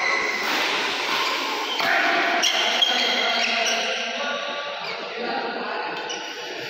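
Badminton rally in an echoing indoor hall: racket strikes on the shuttlecock, with one sharp hit about three seconds in the loudest, under players' voices and court noise.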